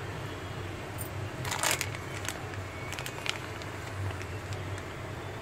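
Clear plastic packet crinkling in the hand, a few short crackles over a steady low hum.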